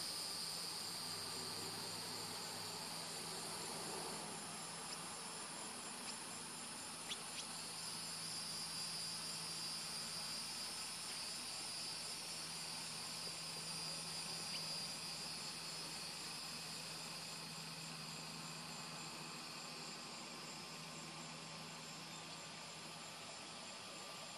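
Steady, high-pitched chorus of insects trilling, with a fine rapid pulsing in it, and a few faint ticks about five to seven seconds in.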